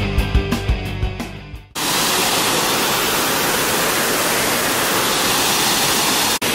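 Background music with a beat fades out, then about two seconds in it cuts to the steady rush of Hogg's Falls, a waterfall, which carries on with a brief dropout near the end.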